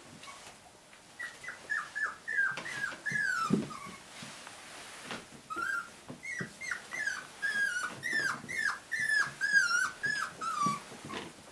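Six-week-old Cocker Spaniel puppy whining: short, high calls that fall in pitch, about three a second, in two runs with a short pause between them.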